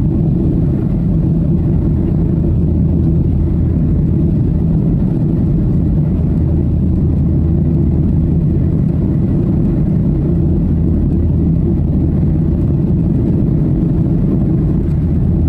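Steady engine and airflow noise heard from inside the cabin of a Boeing 737-800 in flight: an even, unbroken low drone.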